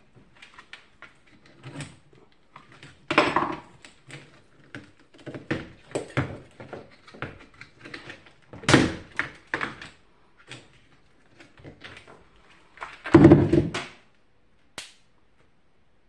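Plastic box-fan housing and parts knocking and clattering as they are handled and taken apart, with louder thunks about three, nine and thirteen seconds in.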